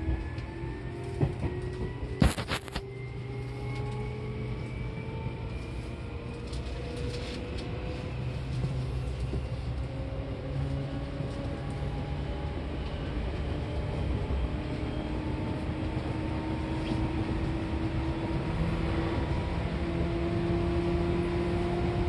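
Seibu New 2000 series electric train heard from on board, its traction motors whining in several slowly rising tones as it accelerates, over a steady rumble of wheels on rail. Two sharp knocks about two seconds in.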